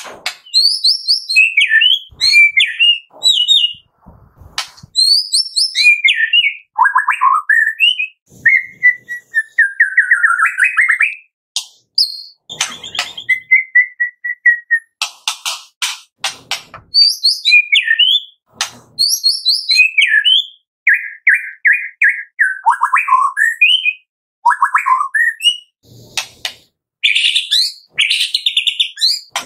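White-rumped shama singing: a varied string of clear whistled phrases, sliding notes and rapid trills, broken now and then by short runs of sharp clicks.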